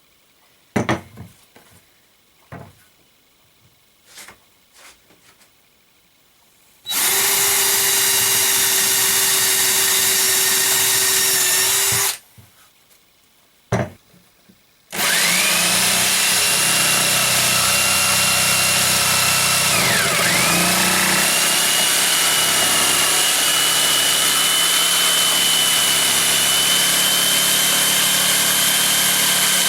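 A few light knocks, then a handheld electric power tool working wood. It makes a short run of about five seconds, then after a pause a long steady run whose high whine drops briefly twice as the tool takes load.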